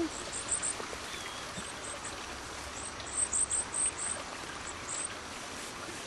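A small songbird calling: very high, thin, short notes in quick runs, the longest run about three seconds in.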